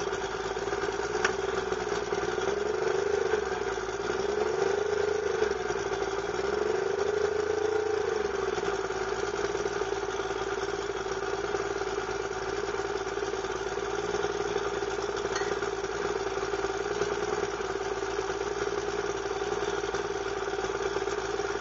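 1973 Chrysler 70 hp three-cylinder two-stroke outboard motor running. Its note rises and falls slightly three times in the first several seconds, then holds steady.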